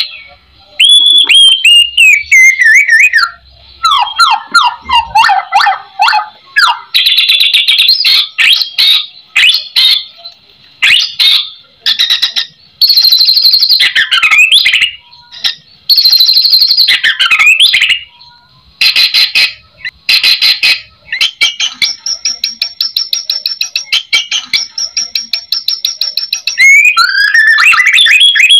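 White-rumped shama singing a loud, varied song full of mimicked phrases. Falling whistles, fast trills and sharp chips come in bursts with short pauses between them, and past the middle there is a long, rapid run of repeated notes.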